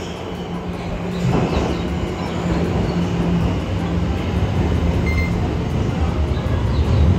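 Subway train coming into the platform, a low rumble that grows steadily louder.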